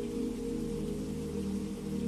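Ambient music of low, sustained drone tones over a steady rain sound.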